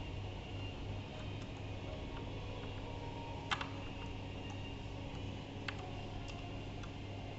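A few small, sharp clicks and taps from handling parts and tools while opening up an HTC Vive XR Elite headset, the clearest about three and a half seconds in and another near six seconds, over a steady low hum.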